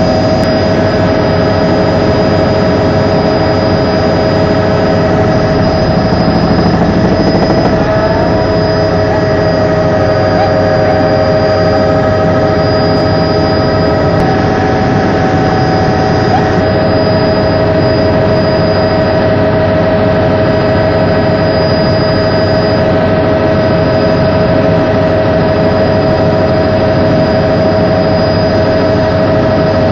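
Helicopter's turbine engine and rotors running steadily, heard from inside the cabin: a loud, even drone with a steady whine.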